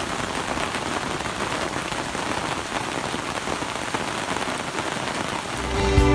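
Steady rain falling, with a dense patter of drops. Guitar music starts to fade in near the end.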